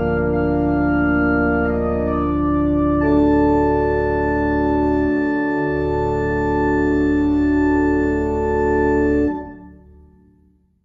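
Organ playing slow, sustained chords over a held bass, changing chord about three seconds in, then fading away near the end.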